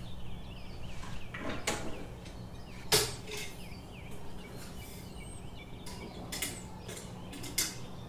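Clicks and knocks of cups and objects being handled on a kitchen counter, the loudest about three seconds in, over a low steady hum. A small bird chirps in quick repeated notes during the first second and again around four seconds in.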